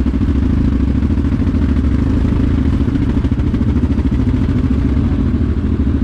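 Yamaha Grizzly 700 ATV's single-cylinder engine idling steadily.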